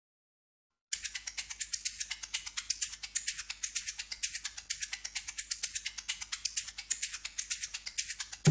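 A rapid, dry rattle of many small, irregular clicks, starting suddenly about a second in.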